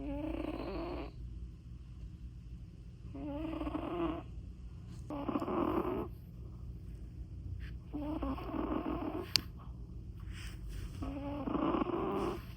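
A cat snoring in its sleep: five slow snoring breaths, each about a second long, coming about every two to three seconds. A single sharp click falls about nine seconds in.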